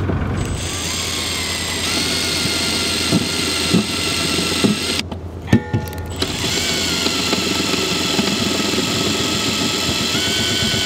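Cordless drill with a twist bit boring into a narrowboat's steel roof: the motor whines steadily under load, stops for about a second halfway through with a couple of knocks, then runs again, its pitch stepping up near the end.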